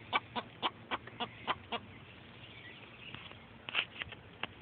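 Chickens clucking: a run of short clucks about four a second, thinning out after about two seconds, with a couple more clucks near the end.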